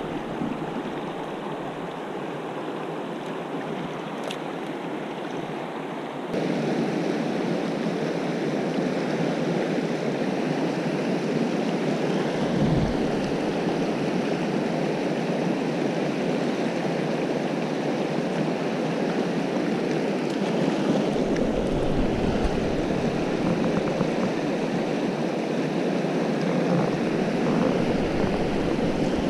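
Fast mountain river rushing steadily over rocks in riffles and white water. It gets louder about six seconds in.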